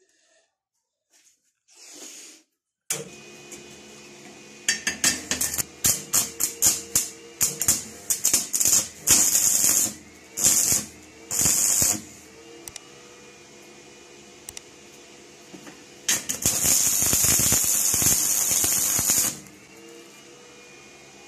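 Stick-welding arc crackling: a run of short loud sputtering strikes as the electrode is struck and tacked, then a steady arc crackle for about three seconds near the end, over a steady electrical hum.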